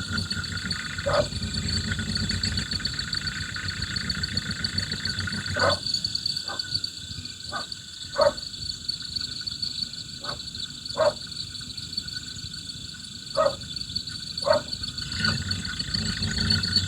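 Running car engine heard through an electronic mechanic's stethoscope: a low steady hum under a constant high whine, with short sharp knocks at irregular intervals. The hum thins out for much of the time, as the probe is moved to another point.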